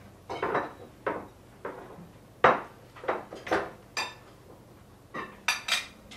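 Knives and forks clinking and knocking on china plates during a meal: about a dozen irregular sharp clinks, the loudest about two and a half seconds in.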